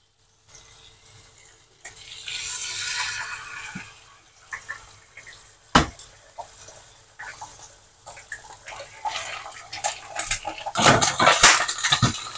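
Eggs frying in butter in a ridged grill pan. Sizzling starts as an egg drops into the hot pan about two seconds in, and a single sharp knock near six seconds comes as the next egg is cracked against the pan. The sizzling then thickens, with spatula clicks and scrapes in the pan loudest near the end.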